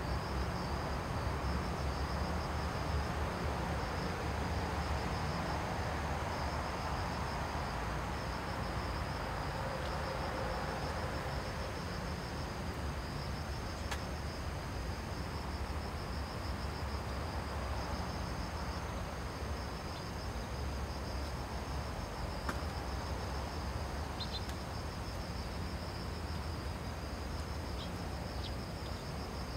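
Insects trilling steadily in a high, rapidly pulsed drone, over a low steady background rumble.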